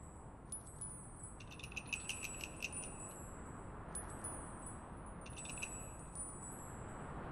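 Faint high tinkling of small chimes, coming in two clusters, the first about a second and a half in and the second around five seconds, over a steady low ambient hiss and rumble.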